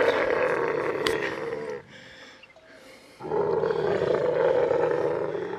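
Male dromedary camel in rut roaring, two long rough calls with a short pause between them about two seconds in. This is the bull's mating-season call, made with mouth open and frothing.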